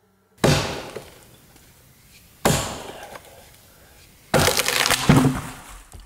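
Three loud crashing impacts about two seconds apart, each dying away over about a second; the last comes as two blows close together.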